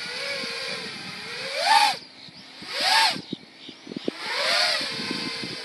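FPV racing quadcopter's brushless motors and propellers whining, steady at first, then three loud swells in which the pitch rises and falls again. The first swell cuts off sharply.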